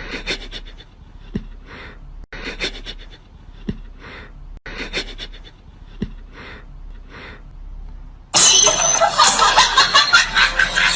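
Short breathy puffs from an animal, coming in pairs about once a second. A much louder burst of dense noise with many sharp clicks takes over about eight seconds in.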